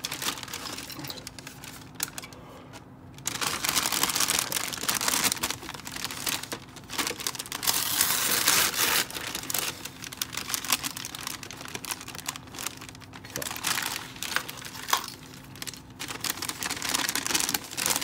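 A thin paper packing bag, like sandwich paper, crinkling and rustling as it is unfolded and handled, in uneven bursts with a short lull about two seconds in.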